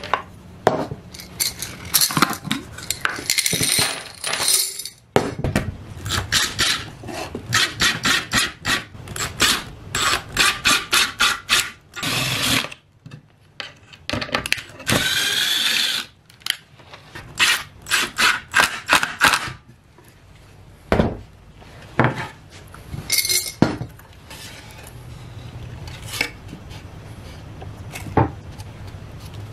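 Small metal screws rattling and clinking in a glass jar and being tipped out onto a wooden workbench, with a continuous rattle for a second or two about halfway through.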